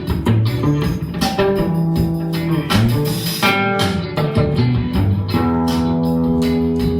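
Squier Classic Vibe electric guitar (2021) playing a picked phrase of single notes, then a chord left ringing from about five seconds in.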